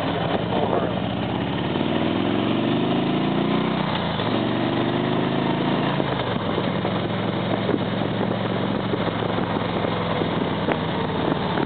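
Harley-Davidson Ultra touring motorcycle's V-twin engine pulling while riding. It rises in pitch about two seconds in, drops sharply about four seconds in as a gear is shifted, climbs again, then settles to a steady cruise under a rush of wind noise.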